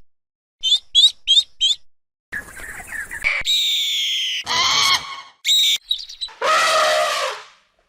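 A run of different animal calls: four quick high chirps about a second in, then a series of longer pitched calls, some high and thin, the last one lower and fuller, lasting about a second.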